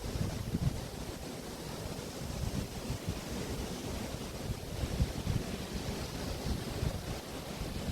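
Waves washing onto a beach, with wind buffeting the microphone in uneven low rumbles.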